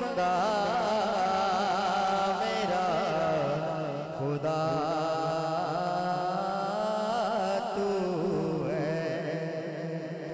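A man singing a naat into a microphone, in long, wavering, ornamented held notes that tail off near the end.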